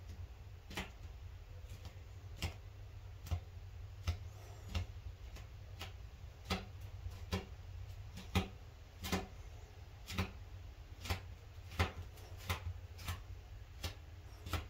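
Sharp, unevenly spaced clicks, roughly one to two a second, from gloved fingers pressing and smoothing soft drain-repair compound around a tub drain opening, over a low steady hum.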